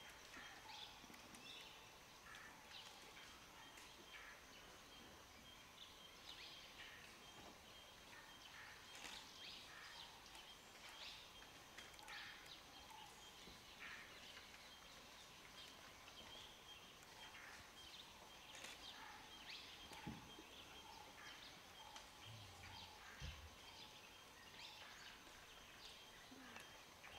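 Faint, quiet forest ambience: scattered short bird calls over a steady, thin high-pitched hum.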